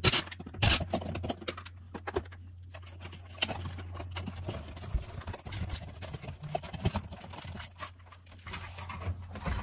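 Scattered clicks, knocks and light plastic rattling as a hardwired ceiling smoke detector is worked off its mounting base, with two louder sharp knocks in the first second.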